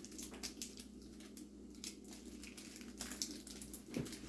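Faint crinkling and light clicks of a chocolate bar wrapper being handled.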